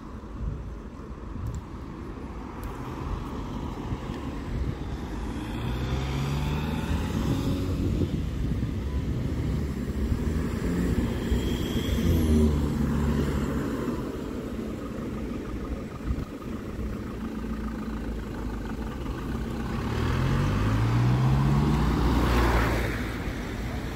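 Motor vehicle engine running over steady road rumble, rising in pitch three times as it speeds up, loudest near the end.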